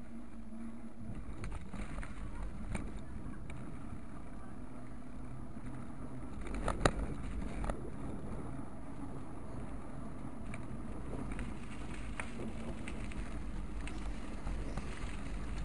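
Steady low rumble of wind and road noise on a moving action camera's microphone, with a few sharp clicks and knocks, the loudest about seven seconds in.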